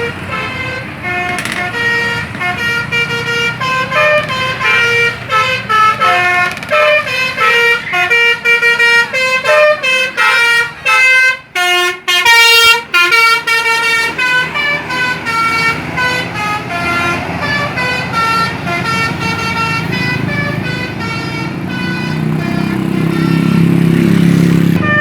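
A bus's 'telolet basuri' multi-note air horn playing a quick tune of short notes at changing pitches, with a fast run of notes about halfway through. Near the end the bus's engine grows louder under the horn.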